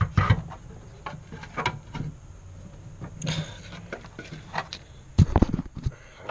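Hand working among the wiring and parts of a car's engine bay: scattered clicks and light knocks of plastic and metal being handled, with a quick run of louder knocks about five seconds in.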